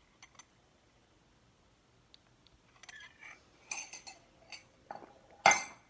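Scattered light clicks and a small clatter, then one sharp knock about five and a half seconds in.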